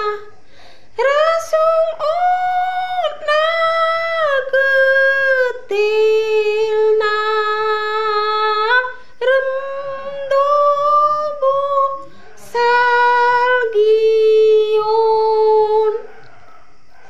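A woman singing a Garo-language Christian hymn solo and unaccompanied, in long, steady held notes with brief breath pauses; her singing stops about a second before the end.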